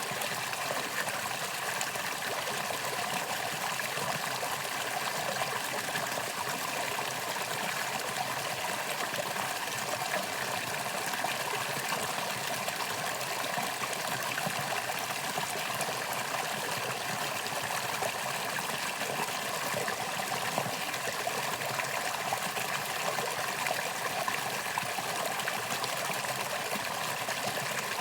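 Valley stream flowing: a steady, even rush and trickle of running water.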